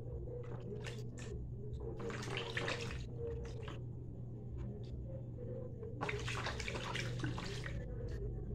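Water running and splashing into a basin as hands wash food in it, in two bursts: one of about a second, then a longer one of nearly two seconds.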